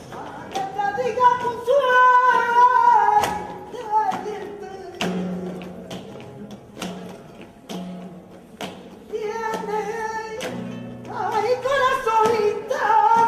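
Live flamenco: a woman singing long, wavering, ornamented lines over a flamenco guitar, with sharp claps at intervals. The voice falls back in the middle while the guitar carries on, then comes in strongly again near the end.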